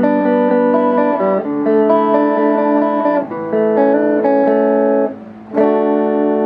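Electric guitar played clean through a locally built Fender-style guitar amp with its tone switch on the rhythm setting: sustained ringing chords that change every couple of seconds, with a short break near the end before a new chord is struck.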